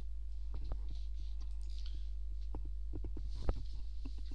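Computer keyboard keys being pressed: a scattering of irregular clicks, one louder than the rest about three and a half seconds in, over a steady low electrical hum.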